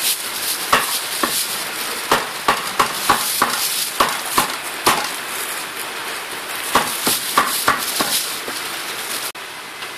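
Thin plastic carrier bag rustling and crinkling as plastic-wrapped takeout plates are packed into it, with irregular sharp knocks and clacks.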